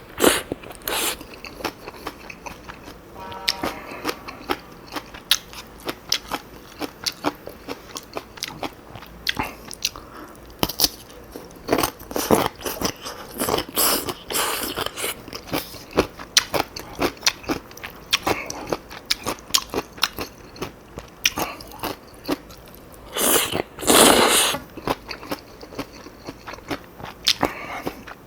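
A person eating Chapagetti black-bean noodles with chonggak radish kimchi and green-onion kimchi, recorded close to the microphone: chewing and biting with many crisp crunches and clicks. There are a few longer, louder spells about halfway through and again near the end.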